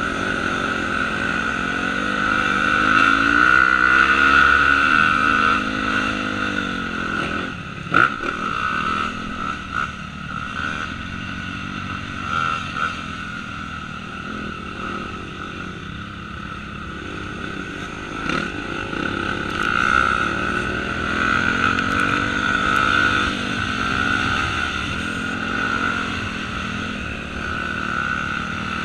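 Motocross dirt bike engines heard from a helmet camera, revving up and down with the throttle as the bike rides the track, among other dirt bikes. A sharp knock stands out about eight seconds in and again around eighteen seconds.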